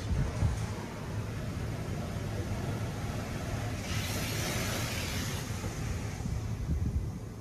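PDQ LaserWash 360 PLUS touch-free car wash spraying water and soap onto the car, heard from inside the cabin: a steady low rumble, with a louder hiss of spray sweeping over the glass about four seconds in.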